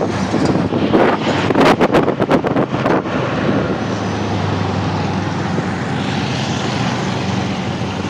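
Road traffic with a jeepney engine running steadily, and wind buffeting the microphone in crackling gusts for the first three seconds.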